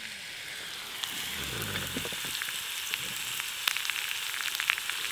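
Slices of pork frying in a cast-iron skillet: a steady sizzle with scattered small pops and crackles that come more often in the second half.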